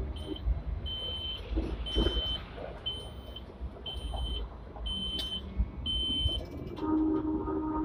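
Hong Kong double-decker tram rolling slowly over the track, with an electronic beeper in the driver's cab sounding seven evenly spaced high beeps, about one a second. Near the end a steady hum of several tones sets in.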